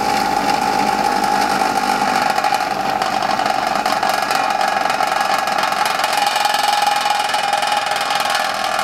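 Ryobi 6-inch bench grinder running steadily at speed with no load, a constant high whine over motor hum.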